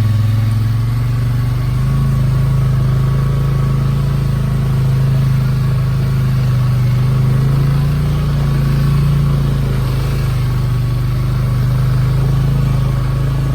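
Off-road vehicle's engine running steadily under the riders, its pitch stepping up a little about a second in and then holding.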